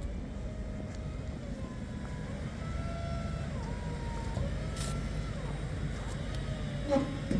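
Steady low machinery rumble with a faint whine that rises and falls in slow arcs, and one short knock near the end.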